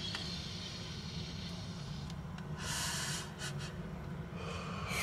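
Close, breathy mouth sounds of a man drawing on a blunt, with a sharp rush of breath about three seconds in and another near the end. A few light clicks follow the first rush, over a low steady hum.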